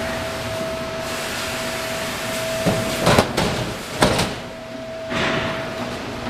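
Steady workshop background noise with a constant single-pitched hum, broken by two sharp knocks about three and four seconds in.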